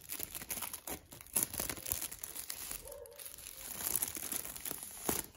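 Clear plastic shrink-wrap film being peeled off a smartphone box and crumpled in the hand: an irregular crinkling crackle.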